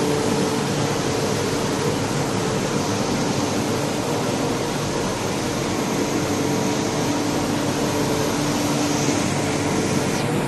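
Vacuum pump running steadily: a constant hum under a loud, even hiss of air.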